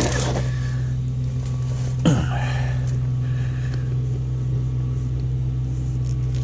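Truck engine idling with a steady low hum, and a single short sound falling in pitch about two seconds in.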